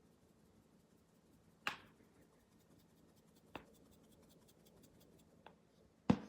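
Simple Dimple fidget toy's bubble buttons being pressed, popping with four sharp, separate clicks a second or two apart, the last one the loudest.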